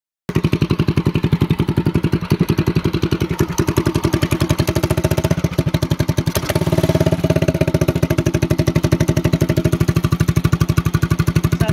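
Predator 212cc single-cylinder four-stroke engine on a go-kart, running at idle through old rusty 4-1 exhaust header pipes held to its exhaust port. The exhaust gives a loud, fast, even string of pulses that gets somewhat louder and changes tone about halfway through.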